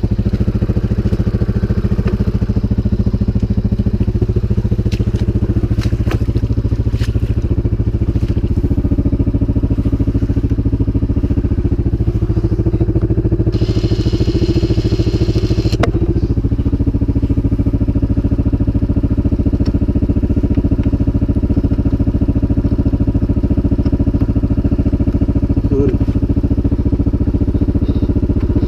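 CFMOTO 500 ATV engine running steadily at idle, with scattered clicks and knocks. About halfway through there is a roughly two-second burst of high hiss.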